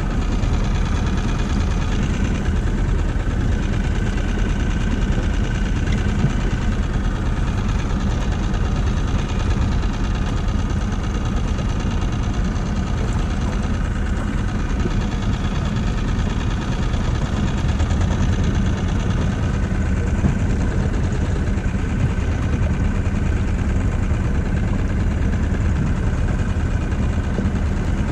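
Small outboard motor on an inflatable boat running steadily while trolling a spoon lure, with no change in pitch or loudness.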